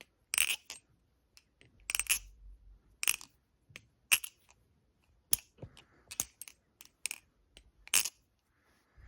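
Balisong (butterfly knife) being flipped: sharp metallic clacks of the handles and blade snapping open and shut, roughly one a second.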